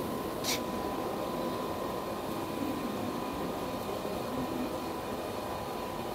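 Steady workshop background hum and hiss with a constant high whine running through it, and one short click about half a second in.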